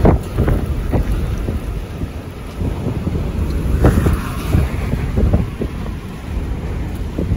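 Strong wind buffeting the microphone in gusty low rumbles, with a car driving past on the road about four seconds in.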